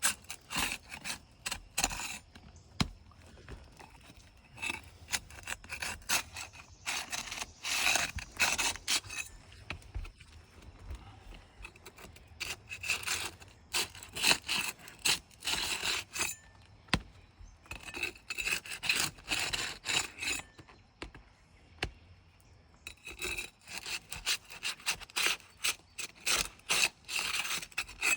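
A hand tool scraping and rasping against asphalt roof shingles in many short, irregular strokes, some coming in quick runs, as the shingles are worked loose for removal.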